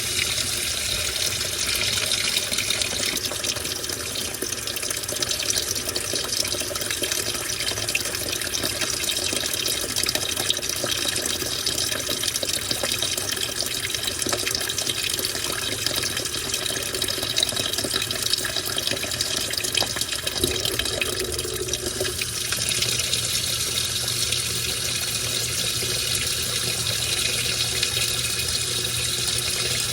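Washing machine washing a load of towels: a steady rush of water churning in the drum over a low motor hum, the hiss of the water growing louder about two-thirds of the way through.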